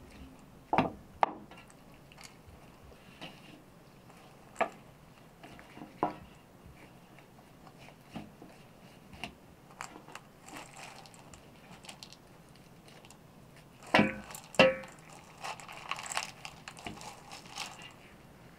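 A knife cutting up a raw whole chicken, with scattered crunches and sharp clicks as skin and joints give way. The loudest pair comes about fourteen seconds in, followed by a stretch of rougher crackling.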